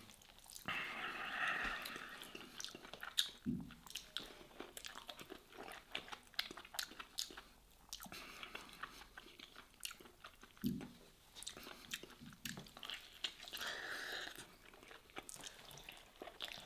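Close-up wet chewing and lip-smacking of a person eating soft stuffed vegetables by hand, with many small mouth clicks and two brief low hums.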